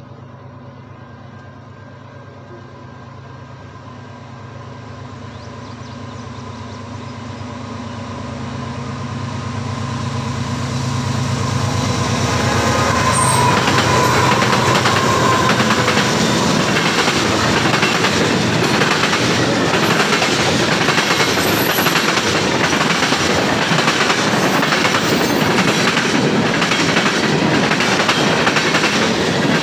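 Diesel freight train approaching: a low locomotive engine drone grows steadily louder over the first dozen seconds. The Canadian Pacific locomotive then passes, and the freight cars roll by with a loud, steady clatter of wheels over the rail joints.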